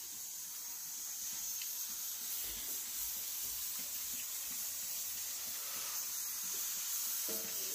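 Steady hiss from a closed pressure cooker of chicken pieces on a lit gas burner, slowly getting louder.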